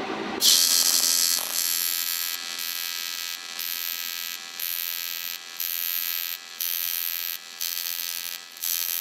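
TIG welding arc buzzing and hissing as a bracket is welded, starting about half a second in and dipping briefly about once a second.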